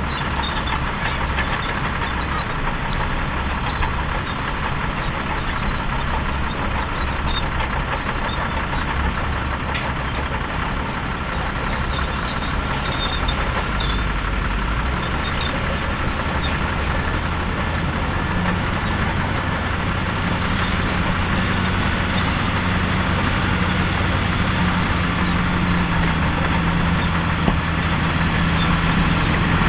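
Heavy diesel engine of earthmoving equipment running continuously, pulling harder and a little louder from about two-thirds of the way in.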